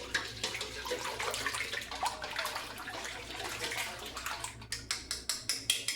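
Beaten egg and milk mixture pouring from a bowl into a pie crust over the ham and cheese filling: a steady liquid pour, ending in a run of quick short taps near the end.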